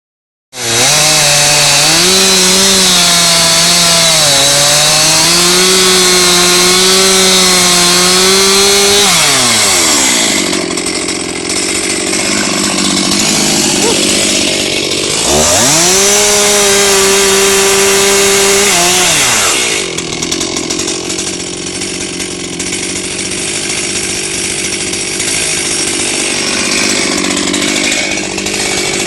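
Chainsaw engine running at high revs for about nine seconds, then dropping back. It revs up again about halfway through, holds for a few seconds and drops again, then runs on with a rougher, noisier sound at a lower level.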